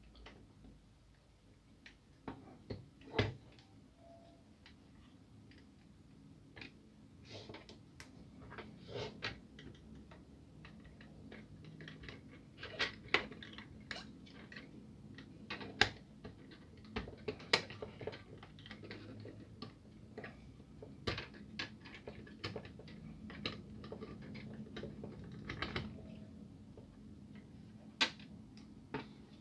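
Irregular clicks, taps and knocks of a Kyocera laser-printer drum unit's hard plastic housing being handled, turned over and pried at with a small screwdriver while its end cap is worked loose.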